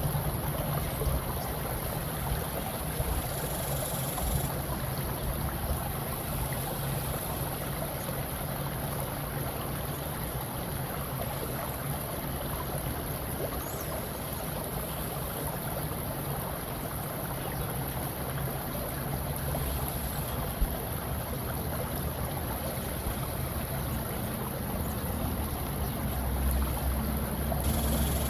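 Steady rushing water ambience used as a relaxation sound bed, with one brief click about two-thirds of the way through.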